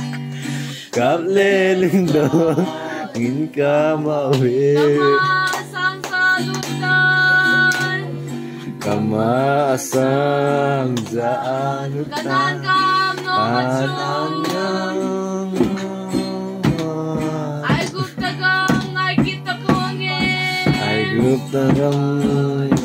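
A group of women and men singing a song together to a strummed acoustic guitar, with percussive beats in time that come thickest in the second half.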